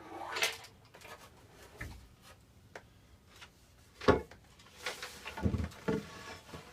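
Hollow shelf board knocking and scraping as it is lifted and held into place, with a sharp knock about four seconds in and a few more knocks shortly after.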